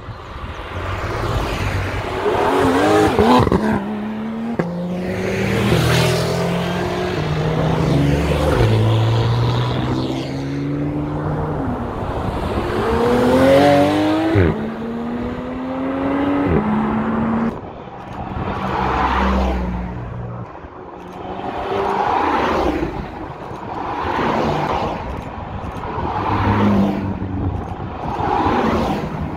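Porsche sports cars accelerating hard one after another, engines revving up in rising notes that drop back at each gear change. After that, several cars pass in quick succession, one every two to three seconds.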